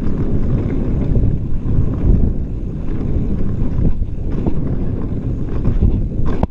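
Wind buffeting the camera microphone over the rumble of a mountain bike's tyres rolling fast on dirt singletrack, with scattered rattles and clicks from the bike.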